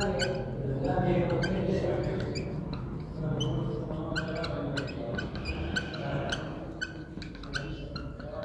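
Felt-tip marker writing on a whiteboard: a run of short squeaks and taps as each letter is drawn.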